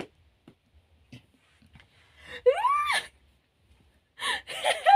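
A person's high-pitched squeal that rises and falls about halfway through, then breathy, gasping laughter near the end.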